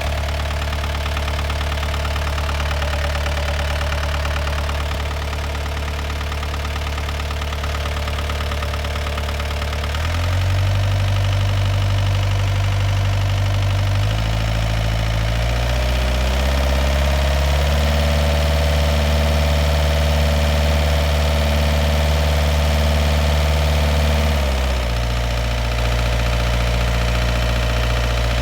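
Yanmar 4TNE98 four-cylinder diesel engine running with a knock that is present at every engine speed. It idles, is revved up in steps about a third of the way in, held at higher revs, then drops back near the end. The cause of the knock is unknown, and a fuel-system cleaner has not cured it.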